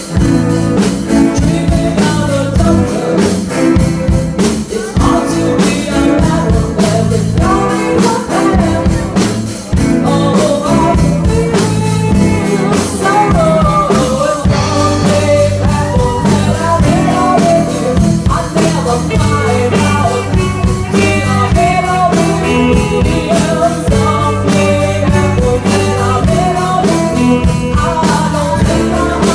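Live rock band playing: electric guitars and drum kit, with a male singer's vocals over them.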